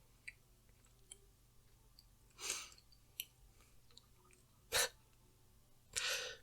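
A person breathing quietly close to a microphone: two soft breaths, one about two and a half seconds in and one near the end, with a few small clicks, the loudest about three-quarters of the way through.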